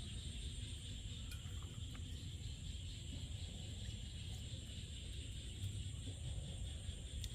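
Steady forest ambience: a constant high drone of insects, crickets by the sound tags, over a low rumble, with a few faint ticks.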